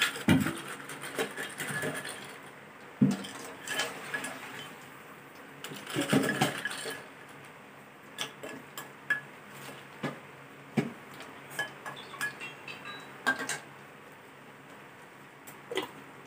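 A metal spoon and spatula clink and scrape irregularly against a stainless steel bowl and a wok as pieces of boiled pork skin are dropped into hot oil and stirred, over the crackle of the skin frying. Near the end a steel pot lid clinks shut.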